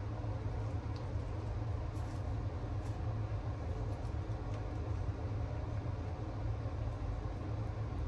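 A steady low rumble of background noise, with a few faint light clicks of food being handled.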